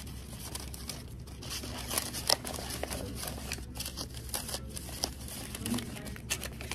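Rustling and crinkling handling noise with scattered light clicks, over a steady low hum.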